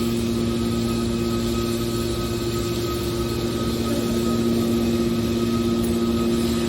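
Scrap metal baler's motor and hydraulic pump running with a steady hum, unchanging throughout.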